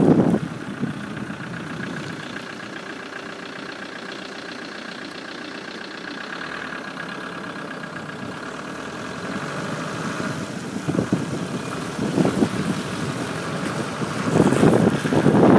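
Car driving through floodwater: water splashes and sprays loudly near the start and again in the last few seconds, with the engine running steadily in the quieter stretch between.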